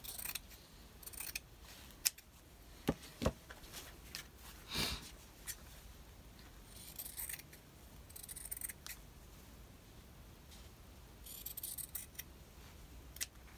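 Scissors cutting craft scraps, in short snipping and rustling spells, with a few sharp clicks of things set down on the desk.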